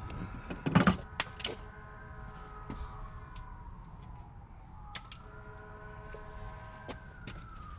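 Clicks and knocks from hand work on the brake booster's vacuum hose and fittings, loudest about a second in, over a siren wailing in the distance, its pitch sliding slowly down, rising again about five seconds in, and falling near the end.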